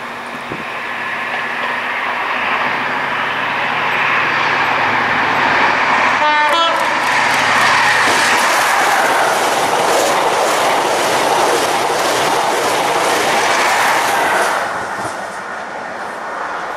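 An InterCity 125 High Speed Train passing through at speed. The diesel power car's engine note builds as it approaches, and its horn gives a short blast about six seconds in. Then comes a long rush of carriages with wheels clattering over the track, falling away about fifteen seconds in.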